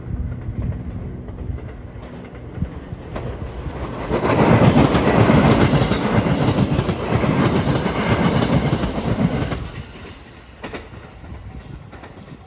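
A train passing at speed, its wheels clacking over the rail joints. It builds up about four seconds in, is loudest for about five seconds, then drops away.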